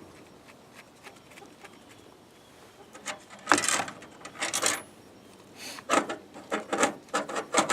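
Small metal clicks, then several short bursts of metal scraping and rattling from about three and a half seconds in, as the chainsaw's bar-mounting nuts are put on the studs and turned.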